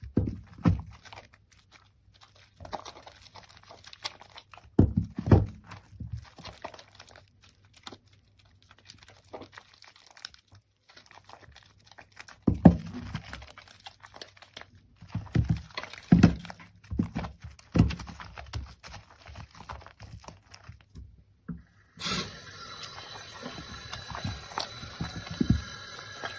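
Wet, soaked soap and its foam squelching as they are squeezed and worked by hand, in irregular clusters of soft low squishes with quiet gaps between. Near the end a steady hiss of noise sets in.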